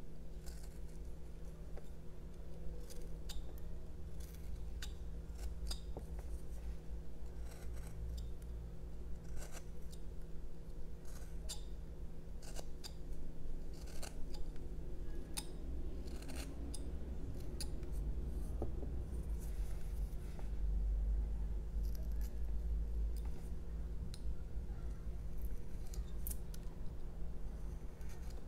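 Carving knife cutting into a jelutong block: short, sharp slicing snicks at irregular intervals, roughly one a second, over a steady low hum.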